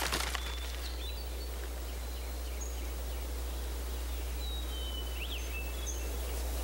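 Quiet outdoor ambience: a steady low hum and faint hiss, with a few faint, thin high chirps of birds.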